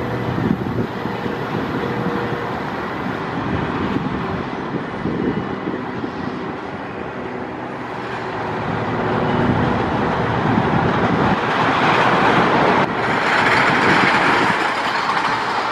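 Train of a wooden roller coaster, Luna Park's Scenic Railway, rumbling and clattering along its track, with a road vehicle passing close and growing louder near the end.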